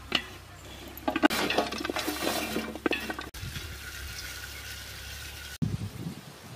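Cauliflower florets tipped off a steel plate into an aluminium pot with a brief clatter, then water poured into the pot in a steady stream, followed near the end by a short bout of sloshing water.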